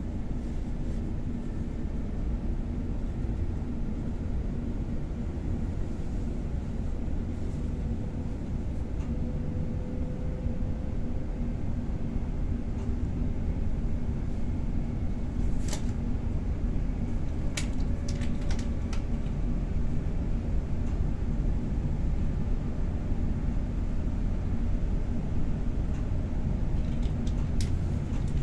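Renfe series 470 electric multiple unit running at speed, heard from inside the passenger car: a steady low rumble with a faint steady hum. A few sharp clicks and rattles come about halfway through and again near the end.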